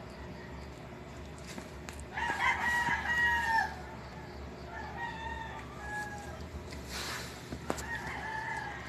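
A rooster crowing: one long crow about two seconds in, then shorter, fainter crows, over a steady low hum.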